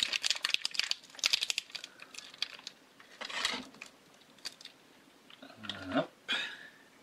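Thin plastic bacon packaging crinkling and crackling as it is handled: a run of quick crackles, then a few separate rustles, with a louder one near the end.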